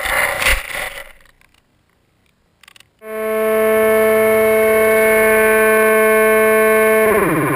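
The Dynam Hawk Sky's electric motor and propeller played back at quarter speed: a loud, steady low drone made of many even tones, which slides down in pitch just after the seven-second mark. Before it, in the first second or so, come irregular knocks and scrapes from the camera tumbling into the grass after the crash, then a short silence.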